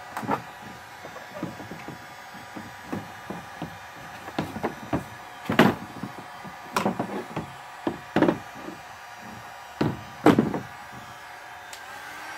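Irregular knocks and clatters of a flattened PVC rib being handled and pressed into a plastic-barrel canoe hull, the loudest about halfway through and again near the end, over the steady hum of a running heat gun.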